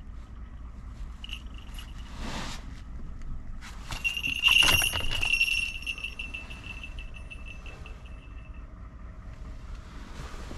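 Falconry bell on a goshawk ringing as the hawk launches off the glove and out of a truck window, with a loud flurry of wingbeats about four and a half seconds in; the bell's ring trails off over about four seconds. A shorter tinkle of the bell comes earlier as the hawk shifts on the glove.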